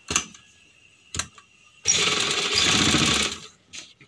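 Domestic sewing machine stitching through cotton fabric in one run of about a second and a half in the middle. Sharp clicks come before it and just after it.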